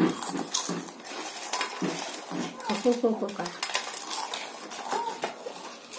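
Stainless-steel plates clinking and scraping as potato chips are picked off them and eaten, with a run of sharp clicks and crunches.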